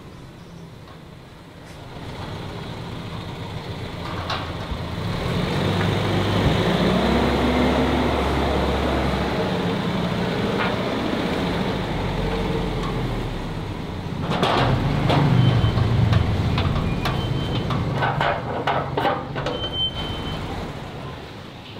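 An old Mercedes-Benz sedan's engine running as the car drives up, growing louder from about two seconds in. In the second half, a run of clicks and knocks comes over the engine.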